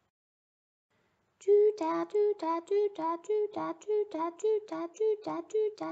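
A woman's voice imitating a two-tone police siren, 'da-du, da-du', alternating between a higher and a lower note about four times a second. It starts about a second and a half in, after silence.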